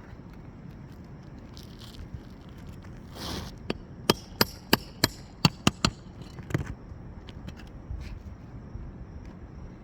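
Metal tool working an old asphalt roof shingle loose: a short scrape, then a quick run of about eight sharp metallic taps, and one more knock a moment later.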